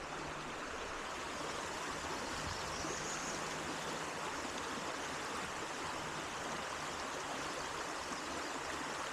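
Steady rush of a small creek's running water.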